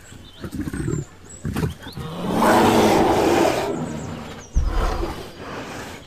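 Brown bear growling and roaring: short low grunts, then one long rough roar in the middle, followed by a short deep thump.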